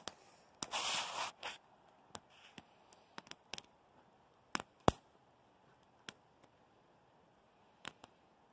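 Wood campfire crackling, with sharp pops at irregular intervals; the loudest pop comes about five seconds in. A brief rustling, scraping rush sounds about a second in.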